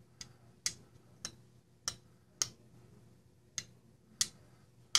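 A small magnet clicking against a folding knife's steel liners and backspacer: about eight sharp, irregular clicks, checking whether the backspacer is steel or titanium.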